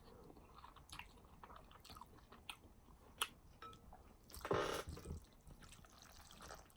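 A person chewing food close to the microphone, with soft scattered mouth clicks and a louder, brief noisy sound about four and a half seconds in.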